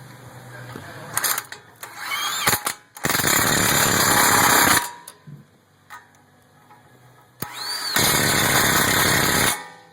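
Power impact wrench running down the 17mm brake caliper bolts, in two bursts of about two seconds and a second and a half, with a few metal clicks of the socket going on before them.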